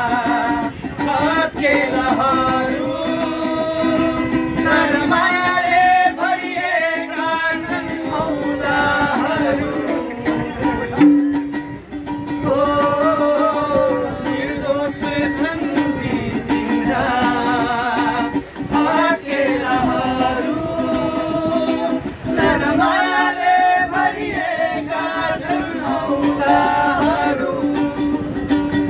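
A man singing a song in phrases with held, bending notes, over a steady low hum.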